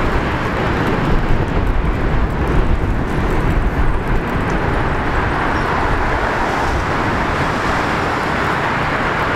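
Steady outdoor city noise: a low, uneven rumble with a hiss above it, and no distinct train clatter.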